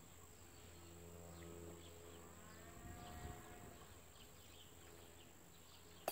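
Near silence: faint outdoor background with a steady low hum and faint insect chirps.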